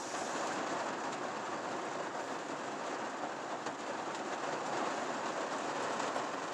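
Heavy rain on the roof and windshield of a truck, heard from inside the cab: a steady roar with scattered sharper drop hits.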